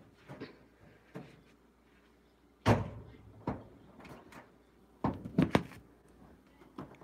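A series of knocks and bumps with no talking: one loud bang a little under three seconds in, another about a second later, and a quick run of three or four knocks around five seconds in.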